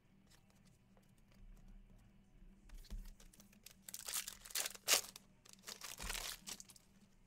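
A trading-card pack's foil wrapper being torn open and crinkled in the fingers, in a few short bursts about three, four to five, and six seconds in.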